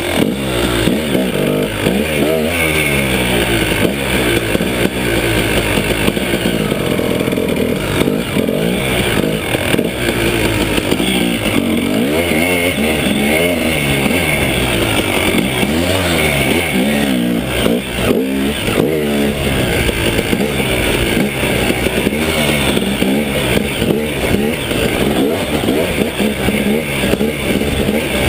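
KTM 300 EXC Sixdays two-stroke single-cylinder enduro engine being ridden hard, its pitch rising and falling every second or two as the throttle is opened and closed.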